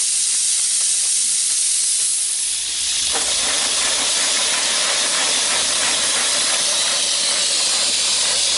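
Live steam hissing from a 5-inch gauge BR Standard Class 4 model steam locomotive. About three seconds in the hiss grows fuller and a low hum joins it, as steam and condensate blow out of the open cylinder drain cocks.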